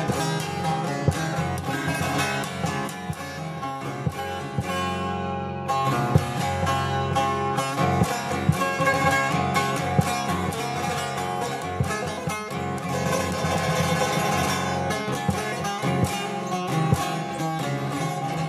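Divan saz, the large long-necked Turkish bağlama with a carved one-piece (tekne) bowl, played solo with rapid strummed strokes: a running melody over steady droning strings.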